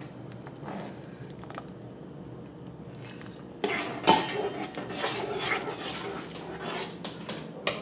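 A spoon stirring soup in a pot, scraping and clinking against the pot's sides, with sharp knocks about three and a half and four seconds in and again near the end.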